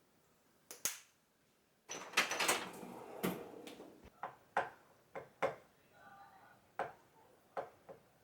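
Household handling sounds: a rustling clatter, then a string of separate sharp knocks and clicks, about one or two a second.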